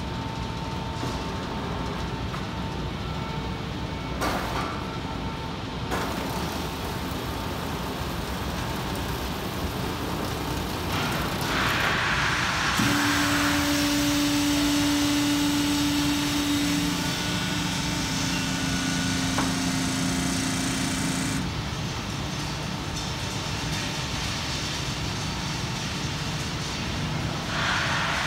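Ital Press panel press line running: a steady machine drone, with a rush of hissing air about eleven seconds in and again near the end. A steady tone comes in about thirteen seconds in, drops lower partway and cuts off about eight seconds later.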